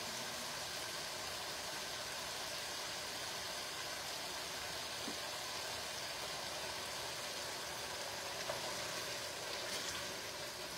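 Steady sizzling from a pot of browned sausage, chicken and melted cream cheese cooking on the stove as heavy cream goes in.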